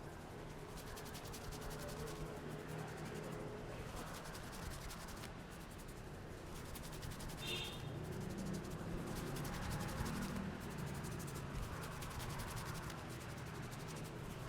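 Hands rubbing and kneading through hair and over the scalp in a head massage: a continuous soft scratchy rubbing of skin on hair, with a brief high chirp about halfway through.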